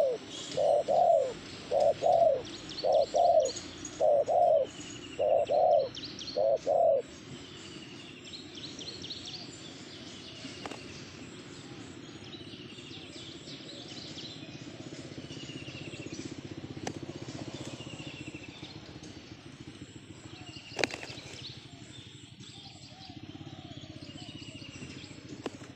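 Spotted dove (tekukur) cooing loudly in a rhythmic run of short notes for about the first seven seconds, then falling silent. Small birds keep up faint chirps with a repeated falling note, and a single sharp click sounds about 21 seconds in.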